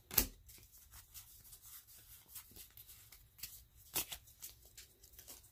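Pokémon trading cards being handled and slid through the hand: faint scattered rustles and light clicks, with a sharper snap just after the start and another about four seconds in.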